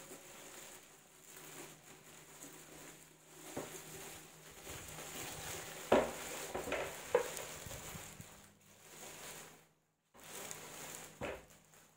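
Clear plastic bag crinkling and rustling as it is worked off a turntable, with a few sharp knocks, the loudest about halfway through.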